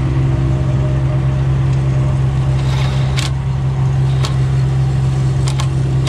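Steady low drone of an idling truck engine. A few short sharp clicks sound over it about halfway through and near the end.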